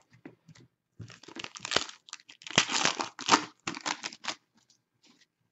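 Plastic trading-card pack wrapper crinkling and crackling in gloved hands, with tearing rustles. A few light clicks come first, then about three seconds of dense crinkling that dies away before the end.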